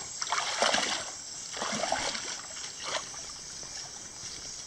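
Bare feet wading through shallow water, a few splashing steps in the first three seconds, then quieter.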